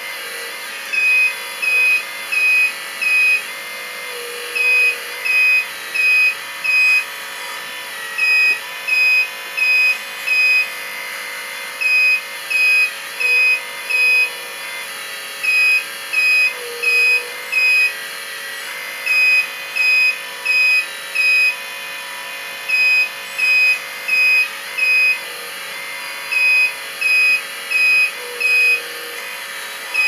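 High electronic warning beeps like a reversing alarm, in runs of three or four with short pauses, over a steady mechanical whine from a model construction machine.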